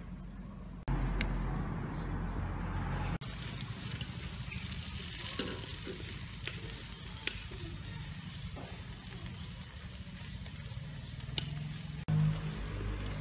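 Long beans and egg frying in hot oil in a wok, sizzling with scattered crackles and pops as they are stirred. The sound changes abruptly a few times.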